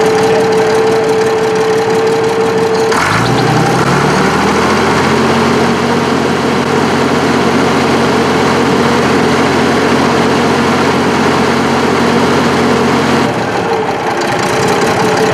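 Case 1150 bulldozer's six-cylinder diesel engine running steadily. About three seconds in, its note drops suddenly and settles at a lower, heavier pitch as the machine is put in gear and loads the engine. Near the end it comes back up to its earlier note.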